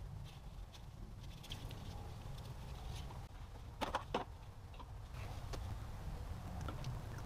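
Scattered light clicks and taps of plastic engine-bay parts being handled and fitted, with a small cluster of sharper knocks about four seconds in, over a low steady hum.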